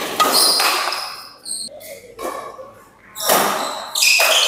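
Badminton doubles rally: players' shoes squeaking on the court floor and the shuttlecock struck by rackets, in an echoing hall. Quick loud bursts come right at the start and again from about three seconds in.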